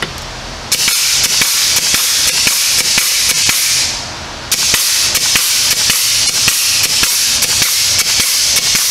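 Air-powered grease gun running in two bursts, pumping grease into a new ball joint: a loud hiss of air with rapid clicking from the pump. The first burst lasts about three seconds, then after a brief pause a second one runs about five seconds.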